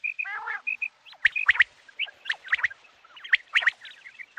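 Common quail calling: short, sharp chirps repeated in quick pairs and small groups, with one lower, falling call about half a second in.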